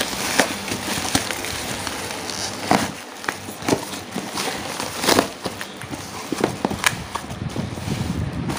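Cardboard boxes and black plastic bubble wrap being handled: irregular rustling and crinkling with sharp crackles and knocks as boxed fishing reels are lifted out of a cardboard shipping carton.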